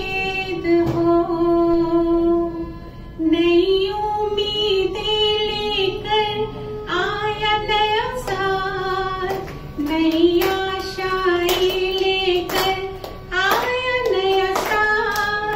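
A woman singing solo into a microphone, holding long, drawn-out notes that slide slowly up and down between phrases.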